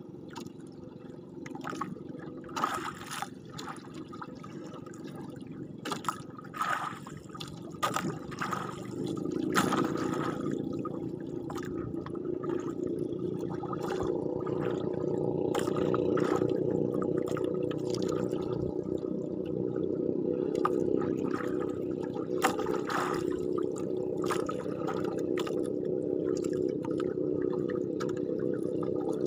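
Sea water sloshing and splashing against a small wooden outrigger fishing boat, with a handful of sharp splashes in the first ten seconds and a steady low hum under it that grows louder about nine seconds in.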